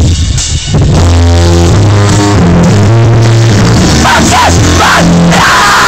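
Live rock band playing loud, with guitar over low bass notes. The music drops out briefly just after the start; near the end a high wavering sound gives way to a long held high note.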